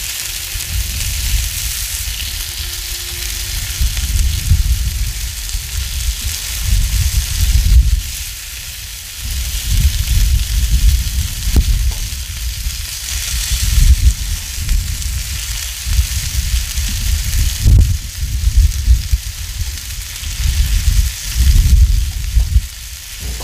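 Ground beef balls and bacon sizzling steadily on a hot Blackstone flat-top griddle. Wind buffets the microphone in irregular gusts, and these gusts are the loudest part.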